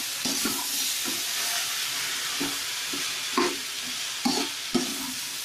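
Sliced okra and other vegetables sizzling in oil in a kadai while a spatula stirs them, scraping against the pan in short, irregular strokes over a steady hiss.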